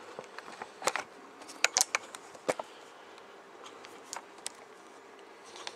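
Handling noise of a camera being set back onto a tripod: a few sharp clicks and knocks in the first three seconds, then quieter, over a faint steady hum.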